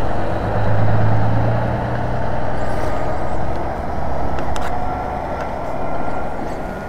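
A motor vehicle's engine running at idle close by: a steady low hum that eases off a little after the first couple of seconds.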